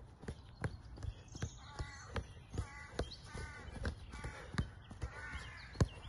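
Light thuds about twice a second from football boots touching and rolling a ball and landing on grass during a sole-scrape drill, the sharpest near the end. A bird calls over and over in the background from about two seconds in.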